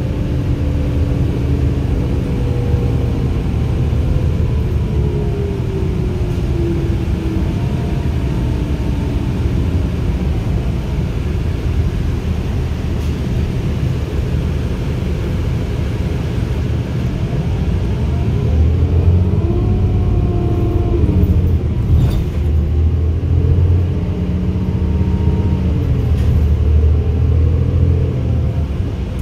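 Interior noise of a 2010 New Flyer D35LFR diesel city bus on the move: steady engine and road rumble, with the engine and transmission pitch gliding up and down as the bus speeds up and slows. The low rumble grows heavier in the second half.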